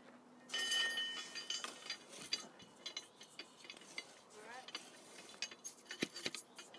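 A 20-centimetre hand soil auger being twisted down into garden soil: the steel bucket scrapes and grinds through gritty earth, with scattered crunches and clinks, loudest in the first couple of seconds.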